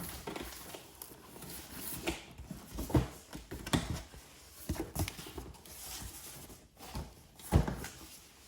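A cardboard shipping box being handled and opened: irregular knocks and thumps with light rustling, the loudest thump near the end.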